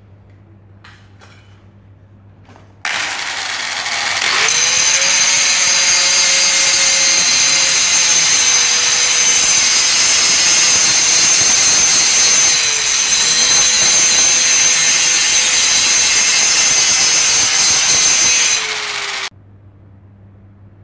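Angle grinder switched on about three seconds in, then grinding the rust off a steel bar held in a vise: a loud, steady whine that runs until it cuts off near the end.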